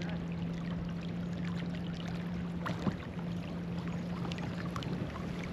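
Electric kayak motor running with a steady hum, water splashing and trickling along the hull as the kayak moves.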